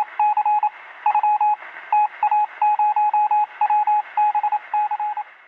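Morse code (CW) beeping in a single steady tone, keyed in quick short and long beeps with brief gaps between groups, over a hiss of radio static.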